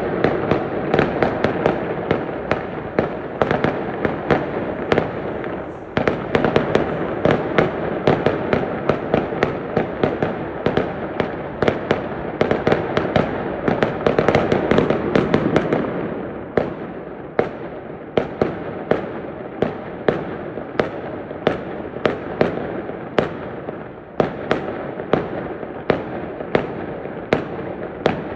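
Fireworks going off in a dense barrage: sharp bangs about two a second over a continuous rumble of more distant explosions, easing slightly after about sixteen seconds.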